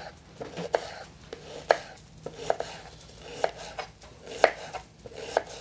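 Kitchen knife slicing an onion into thin slices on a wooden cutting board. Each cut ends in a sharp knock of the blade on the board, coming unevenly at roughly one or two a second.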